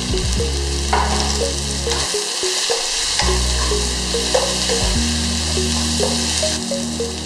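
Long beans and bacon sizzling in a hot frying pan, stirred with a metal spatula that scrapes and knocks against the pan a few times.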